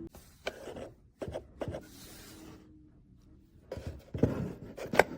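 Objects being handled: a run of light knocks and clicks, several in quick succession about a second in and a louder cluster near the end.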